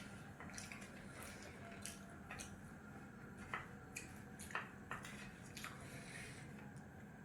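Faint wet chewing and mouth-smacking of a person eating, with scattered short clicks over a low steady hum.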